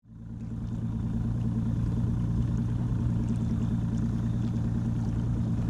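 Boat's outboard motor running steadily at trolling speed, a low even hum that fades in over the first second.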